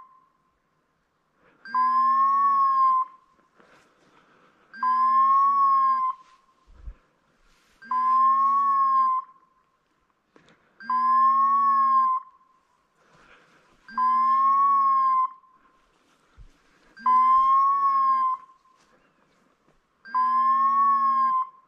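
Electronic beeper collar on a hunting dog sounding a repeated beep: seven identical tones, each a little over a second long, one every three seconds, the pitch rising and falling slightly within each.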